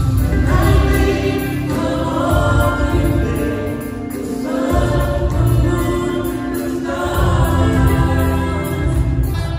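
Live gospel worship song: several singers on microphones over amplified backing music with heavy bass, sung in phrases of about two seconds with short breaks between.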